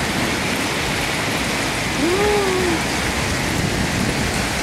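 Heavy downpour with hail, a steady dense hiss of rain. A short voice sound rises and falls about two seconds in.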